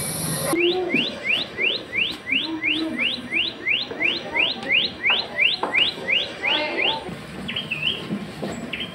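Recorded bird calls played from a museum exhibit display: a rapid, even series of short rising whistles, about three a second, which fit the rufous paradise flycatcher shown on screen. Near the end come a couple of differently shaped whistled notes as the display moves on to the Philippine tailorbird.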